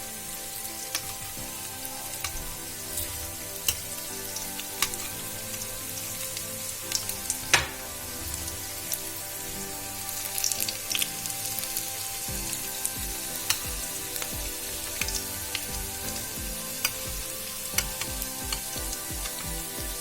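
Onion vadas deep-frying in hot oil: a steady sizzle with scattered pops and crackles, and one sharper pop about seven and a half seconds in.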